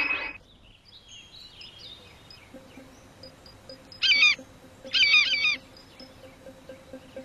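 Cartoon bird-call sound effects: faint scattered high chirps, then two louder bursts of rapid warbling about four and five seconds in, over a soft steady background music tone.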